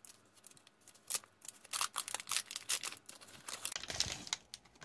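Brown foil-laminate MRE pouch being torn open and pulled apart by hand: irregular crinkling and tearing crackles that start about a second in and come thickest in the middle and near the end.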